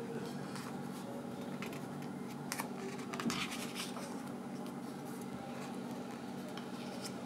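Art-paper pages of a thread-bound photo book being handled and turned, with soft paper rustles and a cluster of crisp page flaps midway, over a steady low hum.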